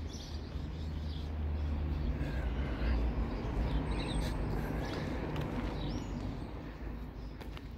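Low engine rumble of a passing vehicle, swelling about two seconds in and easing off after about five seconds, with a few birds chirping faintly.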